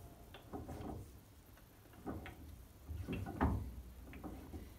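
Irregular metallic clicks and knocks as a lathe chuck is turned by hand to unscrew it from the threaded spindle nose of a Myford Super 7, with a louder knock about three and a half seconds in.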